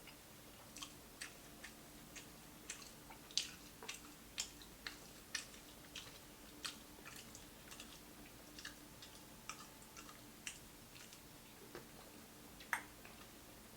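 Close-up chewing of crispy fried food: irregular sharp crunches and mouth clicks, several a second, with two louder crunches about three seconds in and near the end.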